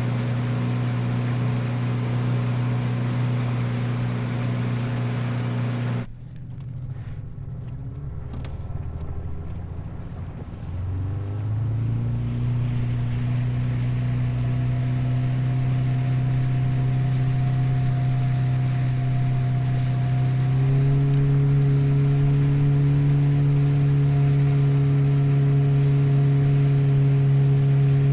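Motorboat engine running under way, with a steady rushing noise of water and wind. About six seconds in it is throttled back to idle and the rush falls away. Around eleven seconds the engine revs up again with a rising pitch, and it steps up once more near twenty seconds.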